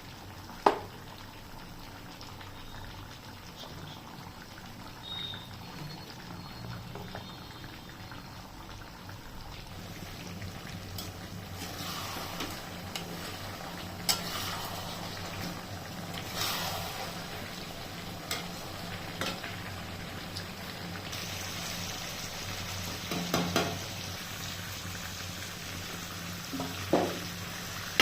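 Chicken curry cooking in a pan, a steady sizzling and bubbling that grows louder about ten seconds in. A spoon stirring knocks against the pan several times, the sharpest knock near the start.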